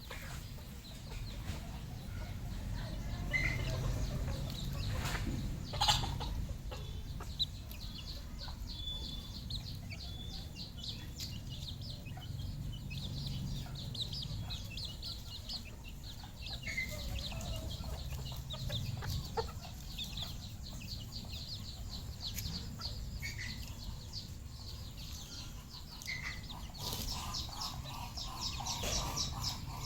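Red junglefowl clucking and calling, with a long run of rapid high chirps over a steady low rumble. A single sharp knock about six seconds in.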